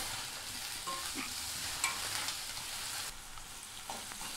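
Chopped onions frying and sizzling in oil in a stainless steel kadai, with a steel spatula scraping and clicking against the pan as they are stirred. The sizzle eases about three seconds in.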